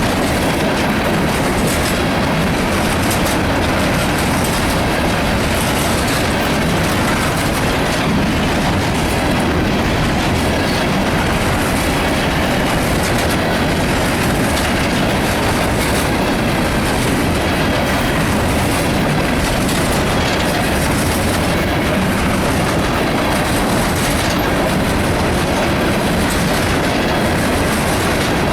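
Empty coal hopper cars of a CSX freight train rolling past close by: a steady, loud rumble with the clickety-clack of wheels over the rail joints.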